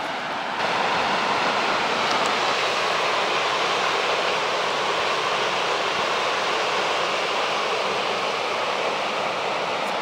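Steady, even outdoor rushing noise with no distinct events, growing a little louder about half a second in.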